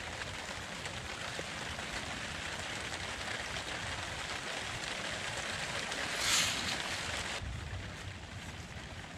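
Wet mud being pressed and smoothed by a gloved hand over stone, a steady hissing, squelching scrape, with a louder rush about six seconds in; the high hiss drops away suddenly soon after.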